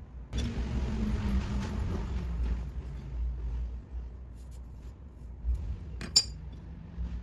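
Metal parts of an antique Millers Falls No. 16 block plane being handled during disassembly. A scraping, rubbing noise comes in suddenly and runs for about two seconds, then after a quieter stretch there is one sharp click about six seconds in.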